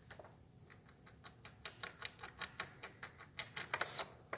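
A rapid, irregular run of light clicks and taps, several a second, getting louder toward the end.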